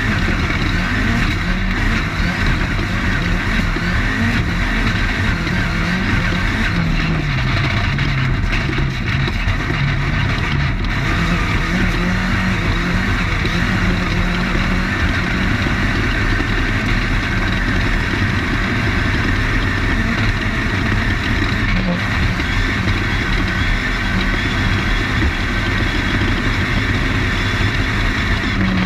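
Off-road desert race car's engine running hard under load, heard onboard over heavy wind and chassis noise. The engine note drops for a few seconds about seven seconds in, then climbs back up.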